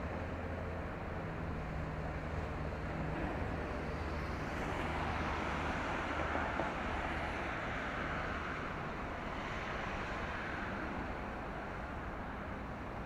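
Steady low engine hum under a broad rushing vehicle noise that swells over several seconds in the middle and then fades.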